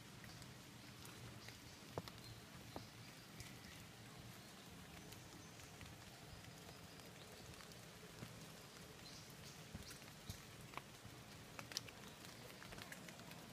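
Faint wet-forest ambience: a low steady hiss broken by scattered light taps and clicks.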